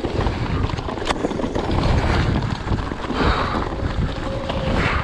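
Mountain bike riding down a dirt trail: wind buffeting the microphone over a steady rumble of tyres on the ground that swells and fades, with a sharp click about a second in.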